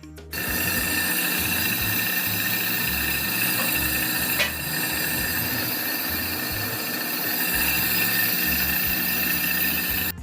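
A machine running steadily with a high-pitched metallic whine over a low, uneven pulsing.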